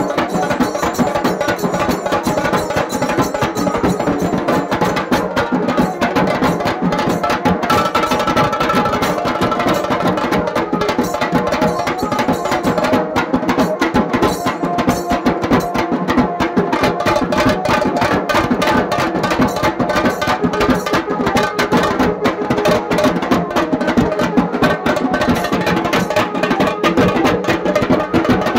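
Dhol drums beaten with sticks in a fast, dense, unbroken rhythm.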